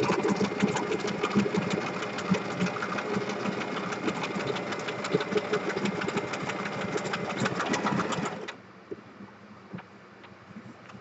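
Electric sewing machine stitching along the edge of a paper bookmark: a fast, steady run of needle strokes that stops suddenly about eight and a half seconds in, followed by faint handling sounds as the bookmark is drawn out from under the foot.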